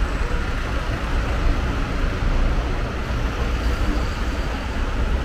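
Steady street traffic noise: a continuous rumble of road vehicles' engines and tyres, with no single event standing out.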